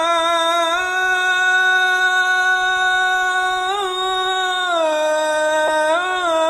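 A muezzin singing the adhan (Islamic call to prayer) on one long, unbroken melismatic vowel. The voice holds a steady note with short ornamental turns near the start, around the middle and near the end, and steps down in pitch about three-quarters of the way through.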